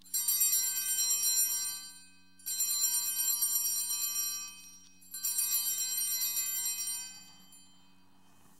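Altar bells (Sanctus bells) shaken three times, each ring a jingling peal of about two seconds with short gaps between, marking the elevation of the chalice at the consecration.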